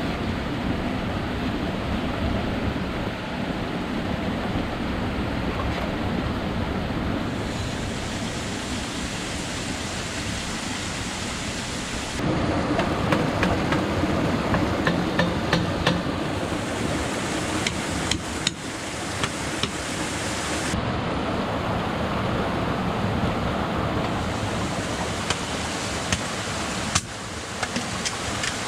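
Steady rushing of water in a rocky stream, with sharp taps and knocks of bamboo being worked with a hand tool scattered through the middle and again near the end.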